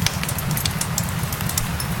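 Fireplace crackling, with irregular sharp pops and snaps over a steady low rumble of burning wood, mixed with the steady patter of rain.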